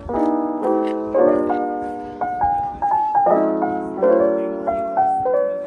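Background music: soft, slow piano chords struck again and again, with a short melody line in the middle.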